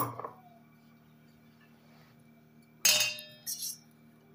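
Kitchen utensils clinking against dishes: a sharp clink right at the start, another ringing clink about three seconds in, then a shorter knock half a second later.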